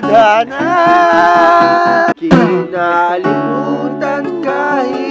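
A man sings while playing a cutaway acoustic guitar, with a sharp brief drop-out about two seconds in.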